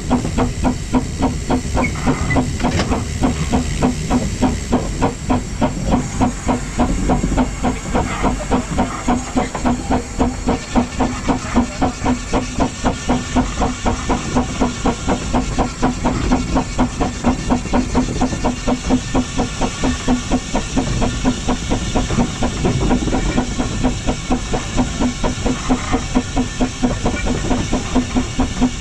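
Narrow-gauge steam locomotive No. 7 'Tom Rolt' working along under steam, heard close up from on the engine: a steady run of evenly spaced exhaust chuffs over continuous steam hiss.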